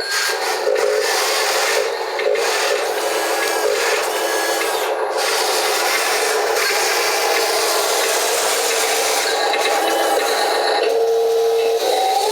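Wheel loader at work moving sand: a steady mechanical running sound with a scraping, rasping texture and a few faint steady whines.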